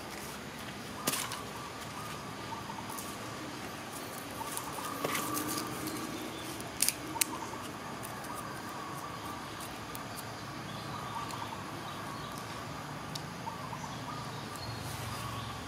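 Outdoor background ambience: a steady hiss with a faint, wavering high tone running under it. A few sharp clicks stand out, one about a second in and two close together about seven seconds in.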